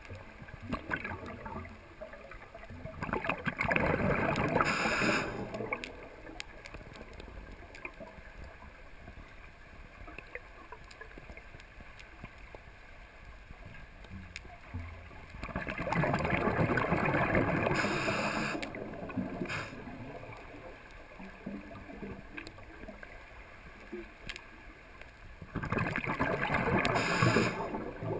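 Scuba diver's exhaled breath bubbling out of the regulator, three long bubbly exhalations about ten seconds apart, with a quieter stretch between each. Faint clicking underwater in between.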